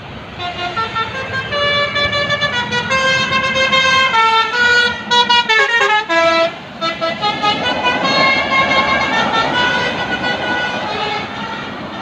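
Bus telolet horn on a tour bus playing a quick, jumpy melody of bright, loud horn notes as the bus passes close by, with the bus's engine noise underneath. The melody is loudest about five seconds in, then trails off near the end.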